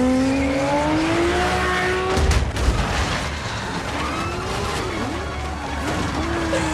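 A sports car engine revving with its tyres spinning, its pitch rising steadily for about two seconds. Then comes a crash of impacts and flying debris as the car smashes through. After that the engine runs on with its pitch wavering up and down, and there is tyre skidding.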